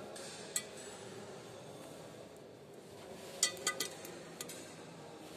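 Junction box cover clinking as it is fitted back in place: one sharp click about half a second in, then a quick run of clinks around three and a half seconds and one more shortly after, over faint steady background noise.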